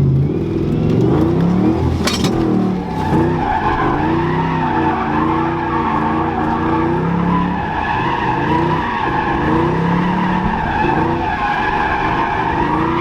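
Car drifting: the engine revs up and down while the tires squeal steadily from about three seconds in. There is a sharp click about two seconds in.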